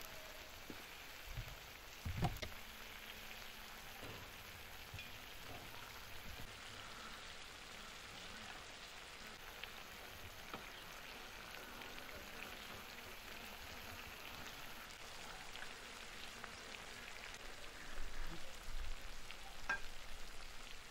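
Chicken legs sizzling in a sticky cola sauce in a wide steel pan over wood embers: a steady frying hiss with small scattered pops. A sharp knock about two seconds in and a few more knocks near the end.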